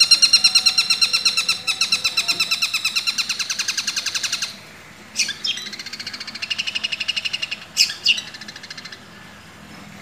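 Caged long-tailed shrike (cendet) singing a long run of fast, shrill repeated notes, about ten a second, in its mimicry of the tengkek buto's rattling call. About four and a half seconds in the run drops off; softer repeats follow, broken by two sharp louder calls.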